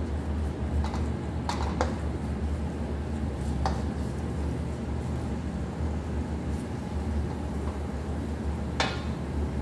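Wooden spoon stirring chopped onions frying in a nonstick wok, scraping and knocking against the pan a few times, with the loudest knock near the end. A steady low hum runs underneath.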